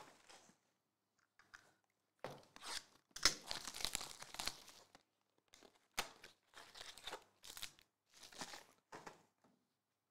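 Foil-wrapped trading card packs and their cardboard packaging crinkling and tearing as they are handled, in irregular bursts with short gaps and a sharp click about six seconds in.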